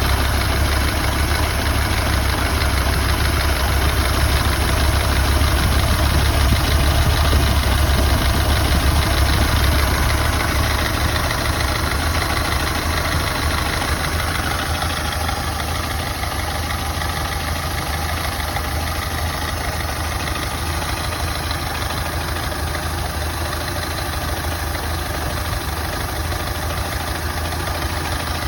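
Ford Model A four-cylinder flathead engine idling with a misfire, a little louder for the first ten seconds or so, then settling slightly lower.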